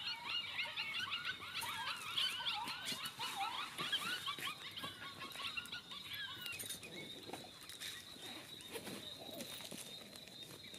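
A chorus of jackals yipping and howling: many overlapping high, wavering calls that thin out and fade about halfway through, over a steady high-pitched tone.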